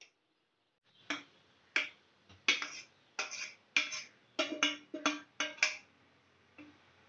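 A steel spoon knocking and scraping against the bowl while curdled milk is scraped out of it. There are about a dozen sharp, irregular taps with a short ring, starting about a second in and stopping near six seconds.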